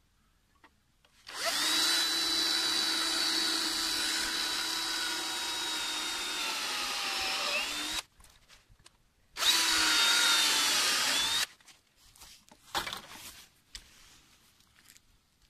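Electric drill running in two bursts: a long one of about six and a half seconds whose pitch sags just before it stops, then a shorter one of about two seconds. A few light knocks follow.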